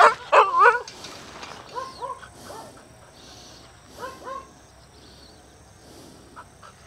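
A dog whining: a wavering whine in the first second, then a few short high yelps over the next few seconds.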